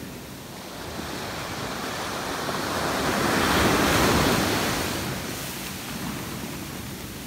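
Ocean surf at the shoreline: a wave builds, breaks with a crash about four seconds in, then washes out into a fading hiss.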